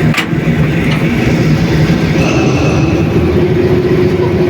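Diesel-electric locomotive running, heard from inside its cab: a steady engine drone mixed with rail noise, with a sharp click just after the start.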